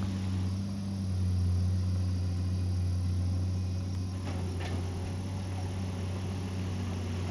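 Excavator's diesel engine running steadily, with a low even drone. A few faint clicks or scrapes a little past the middle.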